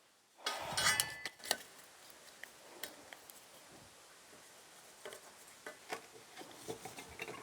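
Light metallic clinks and taps from steel frame pieces and tools being handled. The loudest cluster comes about a second in, with a brief ring of metal, followed by a few faint scattered ticks.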